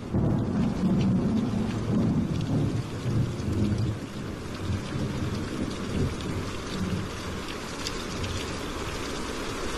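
Rolling thunder over steady rain, with the rumble strongest in the first four seconds and then easing into rain falling with scattered drops.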